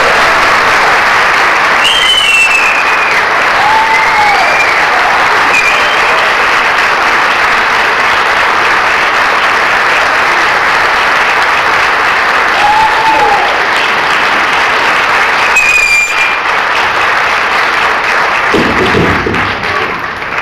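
A large audience applauding steadily, with a few scattered cheers rising above the clapping. The applause dies down near the end.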